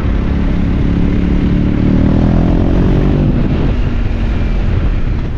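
BMW R 1250 GS boxer-twin motorcycle engine running while under way, its note rising briefly about two seconds in.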